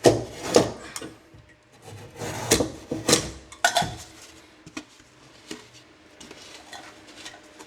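A blade cutting through drywall: several strong scraping strokes at the start and again about two and a half to four seconds in, then lighter scratching.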